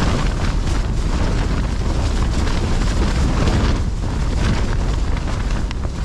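Storm-force wind battering a broken, collapsed tent, heard from inside: the fabric flapping and shaking without a break over a deep, steady rush of wind.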